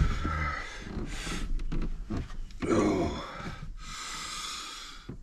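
A man's stretching-awake breaths and groans: a heavy breath out about a second in, a short voiced groan near three seconds, and a long breathy sigh just after.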